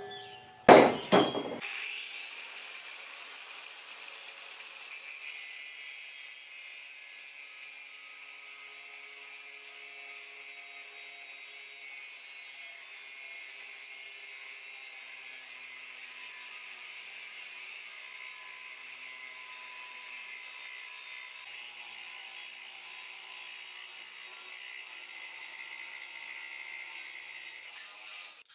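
A couple of metallic knocks as the cast iron plow casting is handled, then a high-speed grinder with a small cutoff wheel spins up to a steady high whine and cuts into the casting. The whine eases off just before the end.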